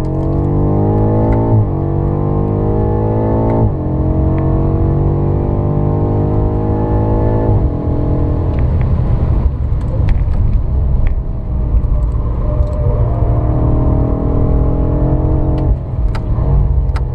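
BMW M5 F90's twin-turbo V8 accelerating hard, heard from inside the cabin: the engine note climbs and drops twice in quick succession with upshifts, then climbs for several seconds more before falling away as the throttle is lifted. It then runs at part throttle with a steadier note.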